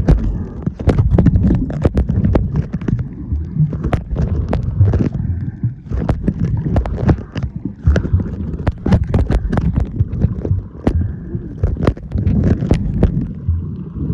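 Muffled water noise from a phone filming underwater: a steady low rumble of moving water with many irregular knocks and clicks against the waterproof case.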